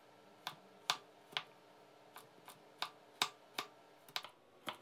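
Chef's knife dicing a carrot on a wooden cutting board: short, sharp chops as the blade cuts through and knocks the board, about a dozen at an uneven pace of two to three a second.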